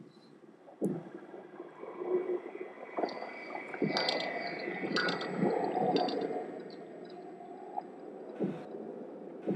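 Dark, droning sound-design ambience with a low rumbling texture that swells and fades, punctuated by a few sudden hits.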